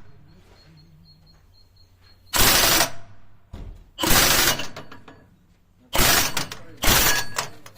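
Cordless impact wrench hammering in four short bursts of about half a second each, driving a bolt that presses a silent block (suspension bushing) into a trailer's suspension through a guide tool.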